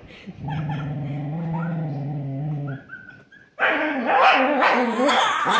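A small curly-coated dog growling in a steady, low, drawn-out rumble for about two and a half seconds, then a few short high whines, then a louder, rougher stretch near the end. The dog is grumbling over its bone, which has been taken from it.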